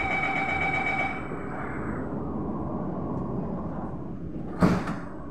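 Train door-closing warning tone sounding steadily for about a second, then the sliding passenger doors running shut and closing with a loud thump near the end.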